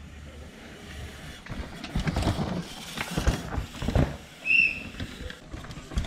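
Downhill mountain bike coming down a dirt race track: irregular rattling and knocking of the bike's chain and suspension, and tyres on loose dirt, with a short high chirp about four and a half seconds in.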